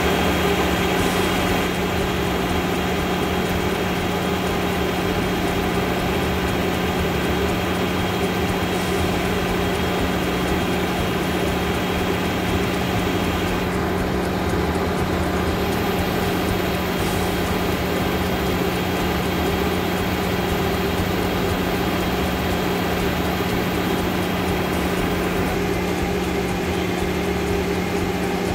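A steady mechanical drone with a constant low hum, like a motor or engine running at a fixed speed.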